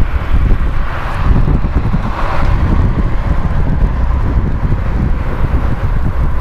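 Boeing 747-400 freighter's four jet engines rumbling as it climbs away after takeoff, with gusts of wind buffeting the microphone.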